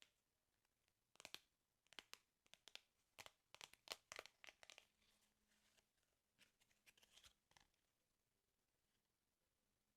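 Paper of a sticker album being torn and crinkled close to the microphone: a quick run of short tearing rasps from about one to five seconds in, then a few fainter ones.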